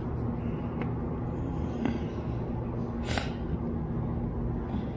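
Night city street ambience: a steady low hum with a brief sharp hiss about three seconds in.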